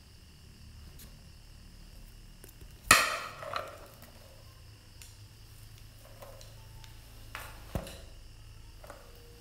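Handling noise: a sharp knock about three seconds in followed by brief rustling, then two smaller knocks a little past seven seconds.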